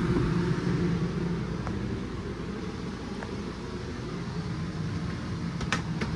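Steady hum of a camper's rooftop air conditioner running, with a few light clicks, the sharpest near the end.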